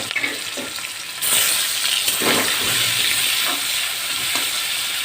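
Turmeric- and salt-rubbed prawns sizzling as they fry in hot oil in a kadai. The sizzle grows louder about a second in, with a few light knocks through it.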